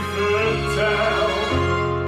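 Live musical-theatre accompaniment from a small band of piano, bass guitar and flute, a melody held over low bass notes that change twice.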